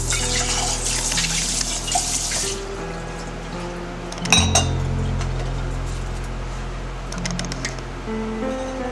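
Background music with sustained bass and melody notes. A bright, hissing, water-like rush runs through the first two and a half seconds, and a sharp click comes about four and a half seconds in.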